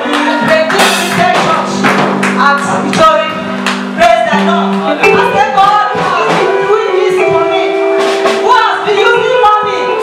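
Live church praise music: a band playing held low notes under a steady run of percussion hits, with voices singing over it. The held bass note changes about halfway through.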